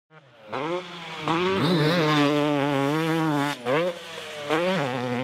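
Dirt bike engine revving: it climbs in pitch about a second in and holds high with a wavering pitch, then drops off briefly and is blipped twice before holding high again.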